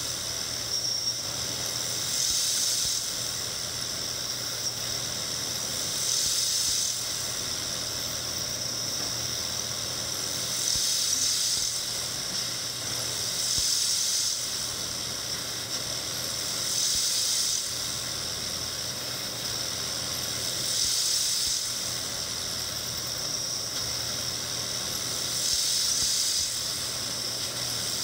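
CNC milling machine rigid peck-tapping #10-32 holes in ductile cast iron. A high squealing whine swells every three to four seconds as each hole is tapped, over a steady hiss from the nozzles aimed at the tap.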